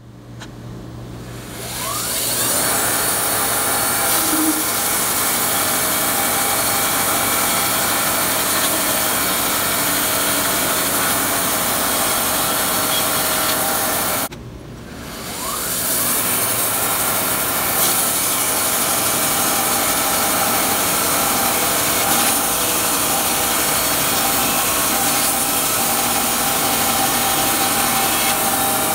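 Wood-Mizer LT50 band sawmill running, its band blade sawing lengthwise through a log. The sound builds up over the first couple of seconds, drops out abruptly about halfway through, then builds back up and runs steadily.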